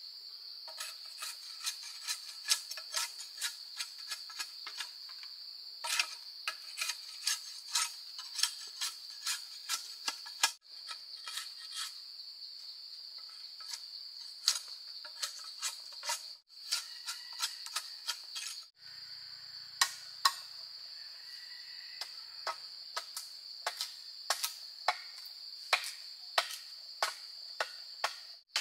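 Insects droning steadily at a high pitch, over many sharp knocks in quick, irregular runs, like hand tools striking wood. The sound cuts out abruptly for a moment a few times.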